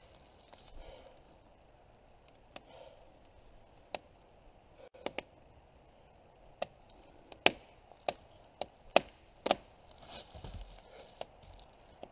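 Wood of a partly cut arbutus trunk cracking as the hinge fibres give way: about a dozen sharp, irregularly spaced cracks and snaps, more frequent in the second half. The tree is beginning to go over.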